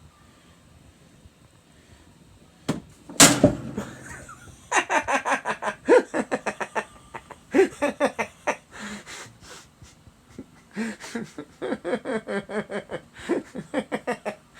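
A sharp thump about three seconds in, then a person laughing in quick, repeated bursts, a long run of laughter broken by short pauses.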